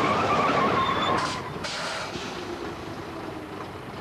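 Bedford lorry pulling up, engine and road noise with a wavering brake squeal through the first second; the noise drops away about a second and a half in, leaving a quieter steady rumble.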